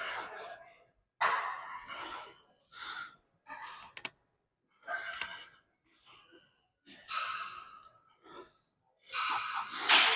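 A man breathing hard as he lifts weights in a set of standing arm exercises. There are about eight forceful exhales and grunts, roughly one a second, and the loudest comes near the end.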